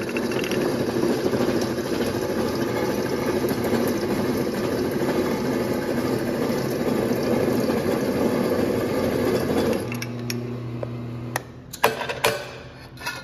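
A Mittler Bros. tube notcher's hole saw cuts through a steel tube with a dense, steady grinding chatter. About ten seconds in the cutting stops and the motor hums on freely. A few sharp metallic clicks and knocks follow near the end.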